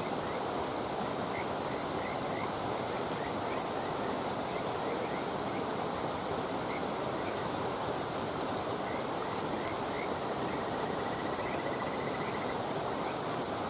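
Steady rushing of flowing water, like a nearby stream, with short faint chirping calls scattered over it and a quick chirping trill about eleven seconds in.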